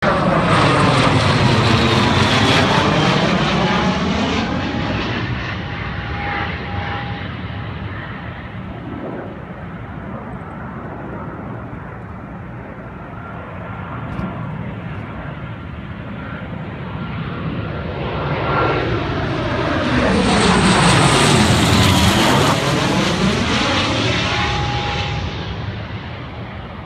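Small military jets on landing approach passing low overhead, their jet engines giving a loud rushing whine that sweeps in pitch as each goes by. The first is loudest at the start and fades over about ten seconds. A second swells in about eighteen seconds in, peaks a few seconds later and fades again.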